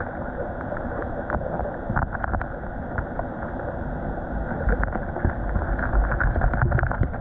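Muffled underwater river noise picked up by a submerged camera: a steady low rumble with scattered faint clicks and ticks.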